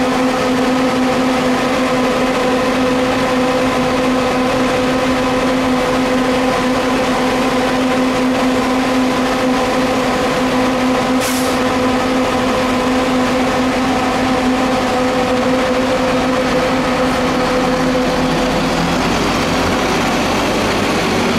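Nova Bus transit bus idling at a stop with a steady drone, a brief hiss about halfway through, then pulling away near the end as a low rumble grows.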